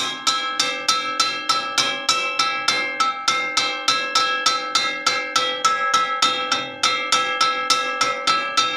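Metal wok struck over and over in an even rhythm, about four to five clangs a second. Each clang rings on with a bell-like mix of steady tones.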